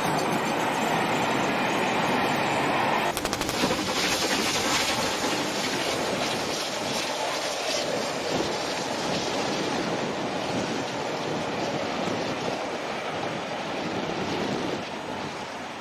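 Steam train passing close by, a steady rushing noise that cuts off abruptly about three seconds in. After the cut, a steady rush of wind and water, with the train now distant.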